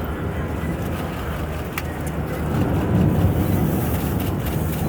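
Steady low rumble of background noise that swells about three seconds in, with a few faint clicks.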